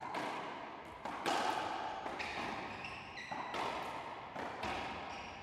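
Racquetball rally: the hollow rubber ball cracking off racquets and the court walls about once a second, each hit echoing around the enclosed court, with high sneaker squeaks on the hardwood floor.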